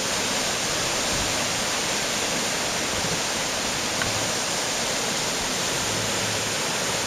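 River water rushing in a steady, even noise, the river running high after a day of rain.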